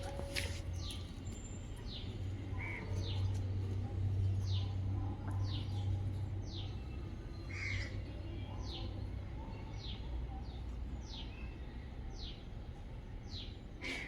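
A bird's short high chirps, each falling in pitch, repeated about once a second, over a steady low hum.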